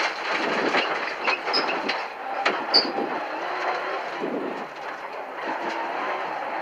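Cabin sound of a Mitsubishi Lancer Evolution IX rally car driven hard on a gravel stage: its turbocharged four-cylinder engine running under a dense noise of tyres on loose surface, with stones clicking and rattling against the bodywork throughout.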